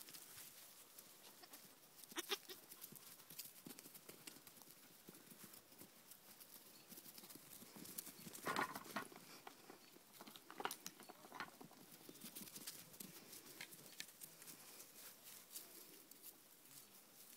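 Faint footfalls and rustling on grass as Oberhasli goat kids run about, with one short goat-kid bleat about halfway through.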